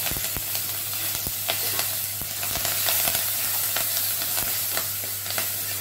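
Fresh curry leaves frying in hot oil with mustard seeds and dried red chillies in a clay pot: a steady sizzle with many small crackling pops as the tempering for sambar fries. A ladle stirs through it partway in.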